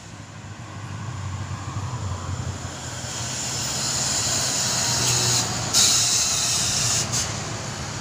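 Intercity coach bus passing close on a bend, its diesel engine rumble growing louder as it nears. About five and a half seconds in, a sharp hiss of released air from the bus's air system cuts in, then stops abruptly about a second and a half later.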